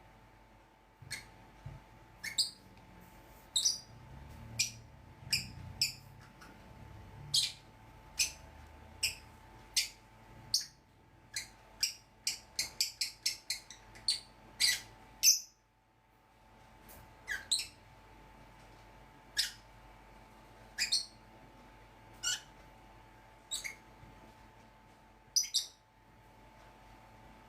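Pet lovebirds and budgies chirping: short, shrill single calls at uneven intervals, with a quick run of calls a little before the middle and the loudest call just after it.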